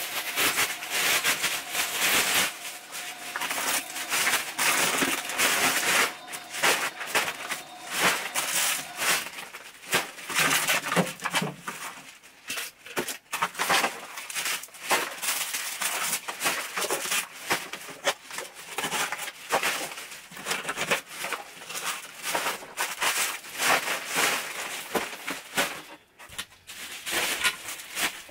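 Plastic bin bag and food packaging rustling and crinkling as rubbish is picked off the floor and dropped into a black garbage bag, with many short clicks and knocks of items landing.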